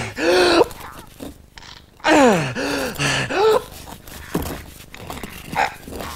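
A man's strained groans and grunts of effort, several drawn-out moans whose pitch swells up and falls away, with breathy gasps between them.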